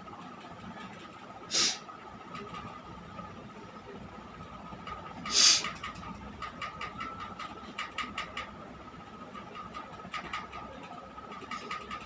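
A person forcing two sharp bursts of air out through the nose, the second louder and longer, about four seconds after the first. Under them runs a steady thin hum, with light clicks in the later part.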